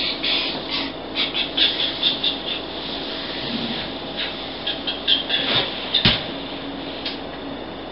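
Short rustles and scuffs as a person shifts and stretches on a tiled kitchen floor, in two flurries, with a single sharp knock about six seconds in, over a steady faint hum.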